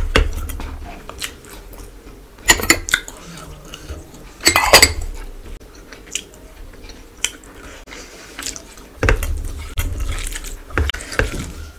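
Close-up eating sounds: fingers mixing rice against a plate, with chewing and wet mouth sounds. Several short, loud sharp sounds stand out over quieter rustling in between.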